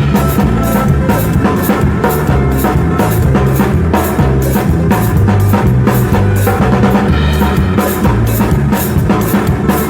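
A band playing through a song at a soundcheck: a drum kit keeps a steady beat, with evenly spaced high strikes over bass drum and snare, above a line of low notes that changes throughout.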